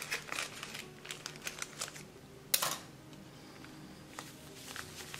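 Paper packet of seasoned fish fry breading mix crinkling and rustling as it is handled, with one louder sharp crackle about halfway through. The breading mix then pours softly from the packet into a glass dish.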